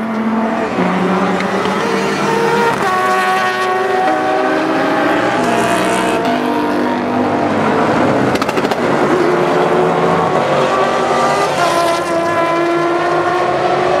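GT race car engines running hard through a corner, several engine notes overlapping and stepping up and down in pitch with gear changes. A short crackle about eight and a half seconds in.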